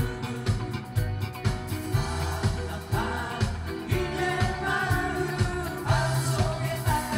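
Live band playing a Korean pop song with a steady drum beat and bass line. A singer's voice comes in about three seconds in.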